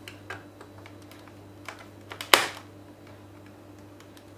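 Light clicks and taps of a small metal hand tool on the plastic bottom cover of a laptop around the memory-slot cover, with one sharp click a little over two seconds in.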